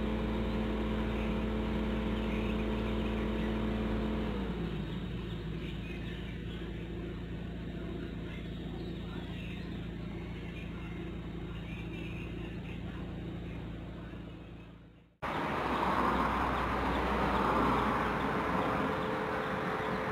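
Car engine idling steadily over a low rumble, its pitch dropping a little about four seconds in; it fades away about three quarters of the way through. Then birds chirp over a steady outdoor background hum.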